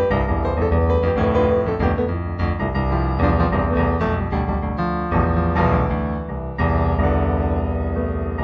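Solo piano music, an improvised piece, with notes struck in a continuous flow.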